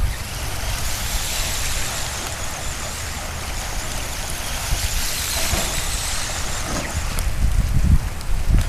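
Heavy rain falling steadily, with a low rumble on the microphone underneath.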